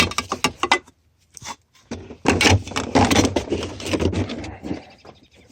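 Metal hand tools clinking and rattling as they are sorted through and picked out of a toolbox. A few sharp clicks come first, then about two and a half seconds of continuous clattering.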